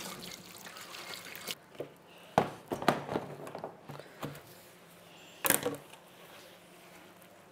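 A few scattered knocks and clinks of kitchenware being handled, the loudest about five and a half seconds in.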